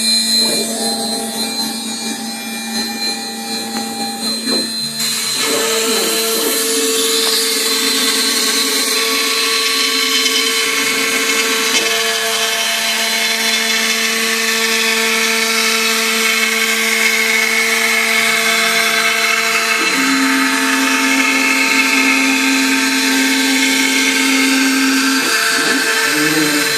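A large CNC router's spindle runs continuously at a steady pitch while milling MDF board, with a high noisy cutting hiss over it. Whining motor tones change pitch several times, around five, twelve and twenty seconds in, as the machine changes moves.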